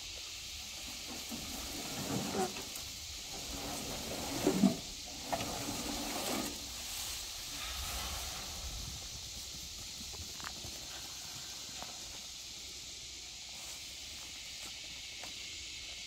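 Steady high hiss of an insect chorus, with rustling of dry sweet potato vines being pulled from a truck bed and tossed over a gate during the first several seconds.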